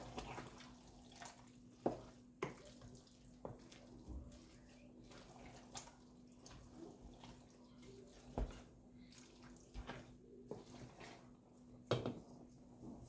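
Wooden spoon stirring wet pasta in a stainless steel pot, with a soft wet sloshing and a few sharp knocks of the spoon against the pot, over a faint steady hum.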